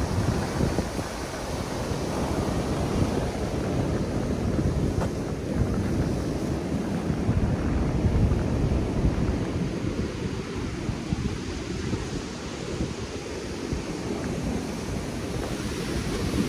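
Ocean surf breaking on a rocky reef shore: a steady, surging rush of waves, with wind rumbling on the microphone.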